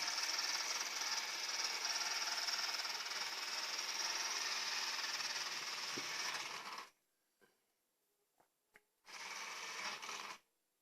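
Robot vacuum cleaner running, a steady motor and fan hiss with a high whine. It cuts off abruptly about two-thirds of the way through, then runs again for about a second near the end.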